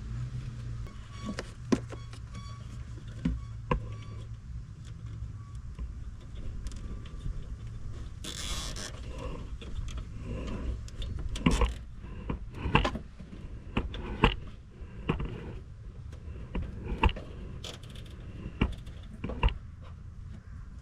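Scattered clicks, taps and knocks of hands working on the truck's grille and wiring, with a short raspy burst about eight seconds in. A low hum fades out in the first few seconds.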